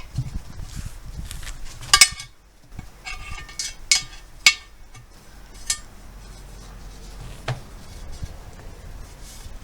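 Hand tools clinking and knocking against a steel wheel rim during a manual tyre change: about six sharp metallic clinks with a short ring, irregularly spaced, the loudest about two seconds in, over low handling and scraping noise.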